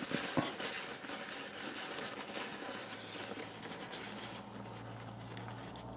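Paper towel wrapping rustling and crinkling as hands unfold it, growing fainter over the last second or so.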